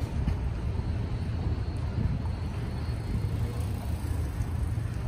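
Steady low rumble of outdoor ambience, with a fainter even hiss above it.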